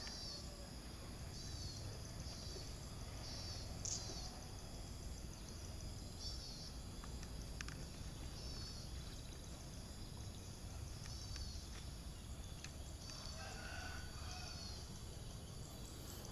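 Distant diesel-hauled passenger train passing, heard only as a low steady rumble, while birds repeat short chirping calls every second or two.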